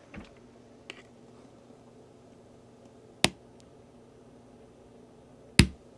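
Two sharp clicks a little over two seconds apart as the preamp is switched on and then off, with a faint high steady tone while it is on. Otherwise only a quiet steady background from the oscilloscope's fan, and no hiss from the speaker: the preamp noise is gone now that a 4.7K resistor is in series with the amplifier's input.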